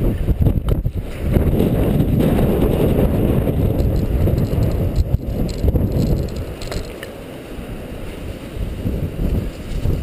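Wind buffeting the microphone of a bicycle-mounted camera as the bike rides along, a dull, fluctuating rumble that eases off about two-thirds of the way through.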